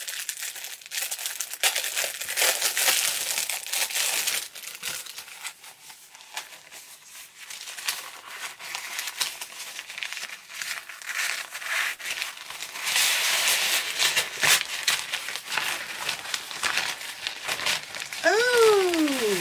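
Crinkling and rustling of a thin raincoat-material foldable shopping bag and its pouch being handled, opened and shaken out. The sound is near-continuous, louder at the start and over the last several seconds. A short falling voice is heard near the end.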